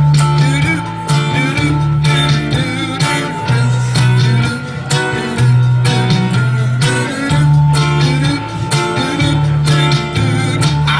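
Hollow-body electric guitar strummed in a steady rhythm, with a low bass line moving back and forth between two notes under the chords.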